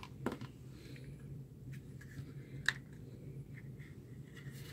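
Plastic clicks and light handling sounds as the plastic housing of a handheld voltage tester is pried apart by hand, with a sharp click near the start and a louder one about two and a half seconds in, over a faint steady low hum.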